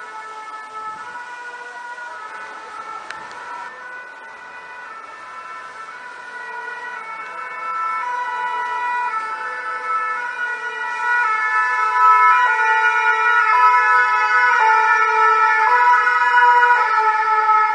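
French two-tone emergency-vehicle siren (deux-tons) alternating between its two notes about once a second. It grows louder as the vehicles come closer, from a little under halfway through.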